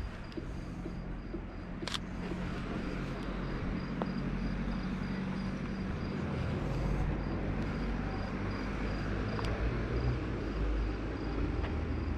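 Low rumble of car traffic on a night street, swelling slightly as a vehicle draws near. A sharp mirrorless-camera shutter click comes about two seconds in.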